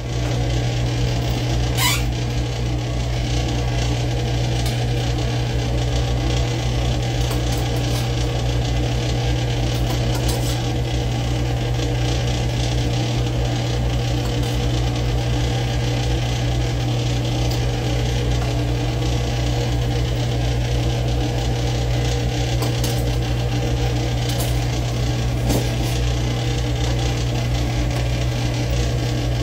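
Kitchen chimney (range hood) exhaust fan running steadily, a loud low hum with rushing air noise, loud enough for it to be taken for a burst silencer. A few faint clicks over it.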